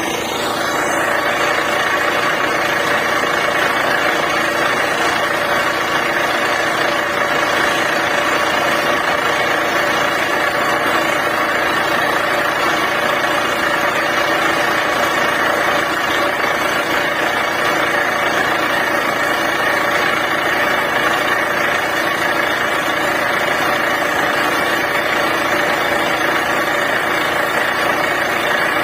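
Borewell drilling rig running steadily: a loud, even engine and machinery noise that rises a little in the first second and then holds unchanged.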